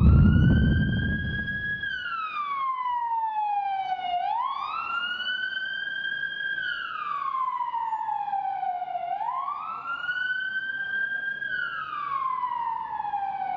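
A siren wails in slow cycles, about three in all. Each cycle rises quickly, holds its high note for a couple of seconds, then glides slowly down before rising again. A deep rumble fades out in the first two seconds.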